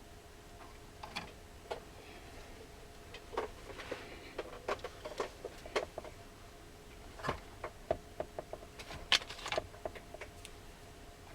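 Scattered light clicks and taps of small hand tools and parts being handled while soldering on a circuit board, with a sharper cluster of clicks about nine seconds in. A faint steady hum lies underneath.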